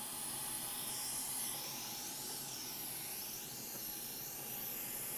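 Hot air rework station blowing a steady hiss of air, ready for heating the solder in a circuit board's through-holes.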